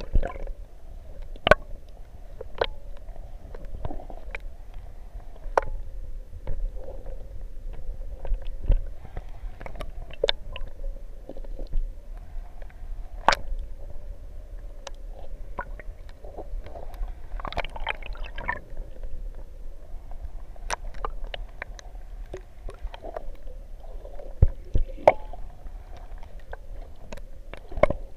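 Underwater sound picked up by a submerged camera: a muffled, steady rumble of moving water with many scattered sharp clicks and crackles, and a denser patch of crackling a little past the middle.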